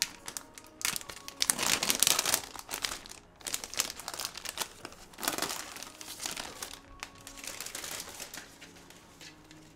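Thin clear plastic sleeves around potted houseplants crinkling as they are pulled off by hand, in irregular bursts that are loudest about two seconds in and again about five seconds in, then quieter.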